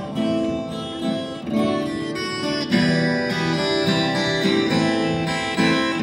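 An acoustic guitar strumming chords in an instrumental passage between sung lines, with the chord changing every second or two.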